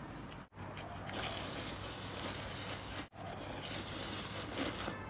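A person noisily slurping sweet potato noodles and hot, sour broth from a bowl in a run of sucking pulls. The sound breaks off briefly twice, about half a second in and about three seconds in.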